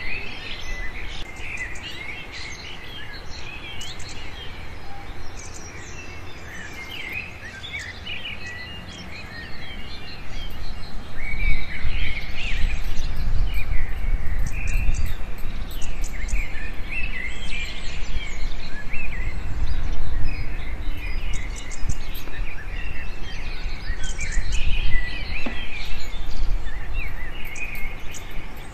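Many small birds chirping and twittering without pause. A low rumble joins about ten seconds in.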